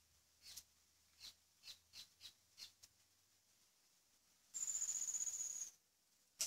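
Thread being wrapped and pulled tight to bind feathers onto a wooden dart shaft: a run of soft, short rustles, then a high, thin squeal lasting about a second, and a sharp click at the end.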